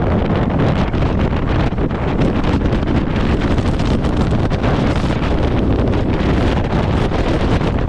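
Gale-force wind, over 35 m/s, buffeting the microphone: a loud, steady, rumbling roar with no let-up.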